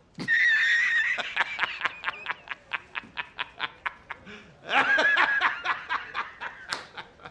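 Laughing sound effect from a meme sound pack: a high-pitched, squeaky snicker that starts on a held note and breaks into a rapid run of short pulses, about six a second. It plays twice.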